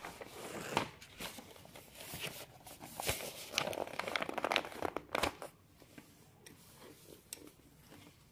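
Paper rustling and crinkling as a textbook page is turned and the open book is pressed flat by hand, with a few sharp crackles. The rustling dies away after about five seconds.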